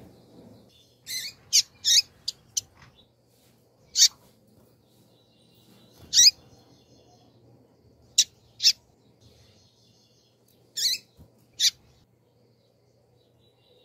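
Female double-collared seedeater (coleiro) chirping: about a dozen short, sharp, high call notes, a quick run of five in the first few seconds, then singly and in pairs with gaps of up to two seconds. These are the female's calling notes.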